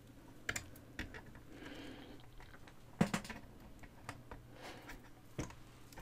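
Faint handling sounds of yarn being wrapped around the pegs of a plastic afghan loom: soft rustling broken by a few light clicks and taps, the sharpest about three seconds in.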